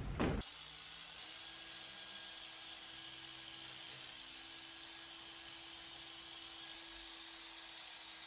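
Rupes iBrid cordless mini polisher running steadily with a small white pad and polish on an alloy wheel, a faint even whine.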